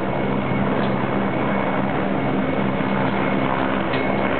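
Two Mi-17V5 military helicopters flying past, a loud steady rotor and engine noise with a low hum and a thin high whine above it.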